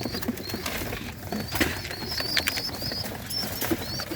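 Pigeons in a loft: soft cooing and wing flapping, with a run of short, high, repeated chirps and scattered sharp clicks.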